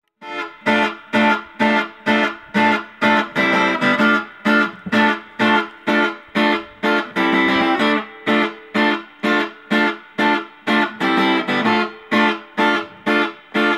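Guitar strumming short, choppy chords in a steady rhythm, about two to three strokes a second, with a few chords held longer. This is the instrumental intro of a rock song, before the singing begins.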